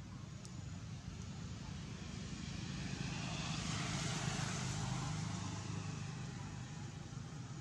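A passing motor's engine noise, a low hum with a wider rush that swells to its loudest about four seconds in and then fades away.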